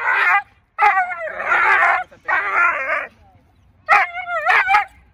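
Seven-month-old female Doberman pinscher barking, yelping and whining in about five short bursts, some with a wavering, whiny pitch.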